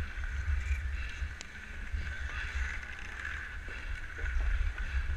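Ice skate blades scraping and gliding on outdoor rink ice in a steady hiss, with wind buffeting the microphone as a low rumble and a few faint knocks.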